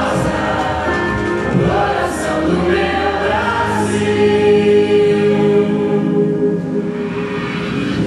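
A film soundtrack of a choir singing over music, building to a long held chord that begins about halfway through.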